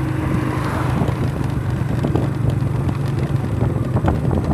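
Small motorcycle engine running steadily at cruising speed while riding.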